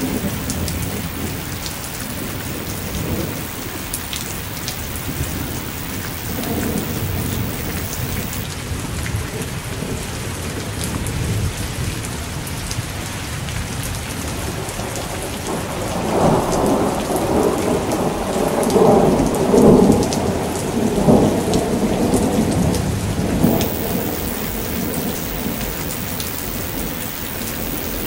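Thunderstorm: steady rain falling on surfaces, with thunder. A long roll of thunder swells a little past halfway through, is loudest a few seconds later, and dies away.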